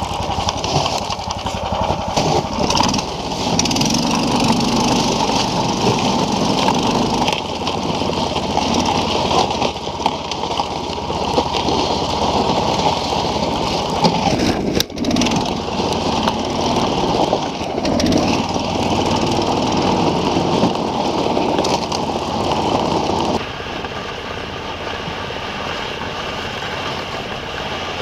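Small engine of a SnowDog tracked snow machine running steadily under way, easing back and getting quieter about three-quarters of the way through.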